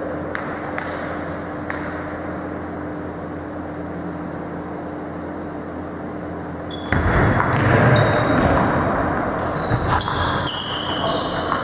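Table tennis ball clicking off the table and the rubber paddles, first a few single bounces, then a quick rally from about seven seconds in, with short high squeaks near the end. The clicks echo in a large sports hall over a steady background hum.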